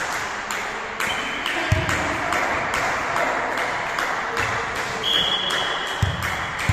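Indoor volleyball play in a reverberant sports hall: a run of sharp taps and a couple of dull thuds as the ball is served and played, and a referee's whistle blown for about a second past the middle, with a brief toot earlier.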